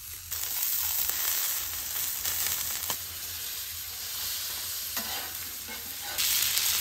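Steaks sizzling in melting butter and minced garlic on a hot Blackstone steel griddle: a steady frying hiss that steps up in loudness just after the start and again near the end.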